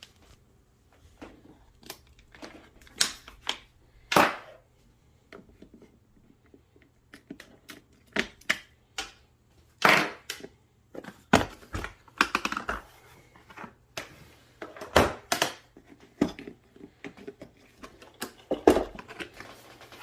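Handling noise: irregular clicks, taps and crinkling as small objects are picked up, moved and set down, with a few louder knocks spread through.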